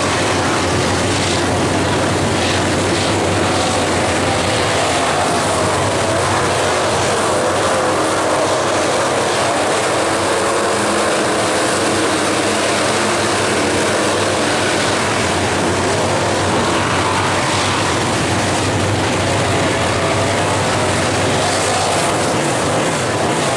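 A pack of IMCA Northern SportMod dirt-track race cars running laps at speed. Their engines blend into one loud, steady drone whose pitch wavers up and down.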